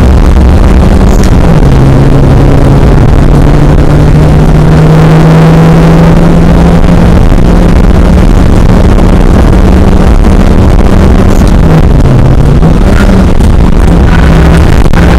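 Car engine under hard driving, heard loud from inside the cabin. Its note holds steady, dipping in pitch about a second in and again near the end before climbing back.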